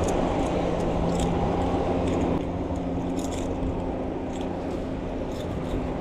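Steady low engine drone of passing boats in a harbour channel, easing slightly about two seconds in, with a few faint light clicks over it.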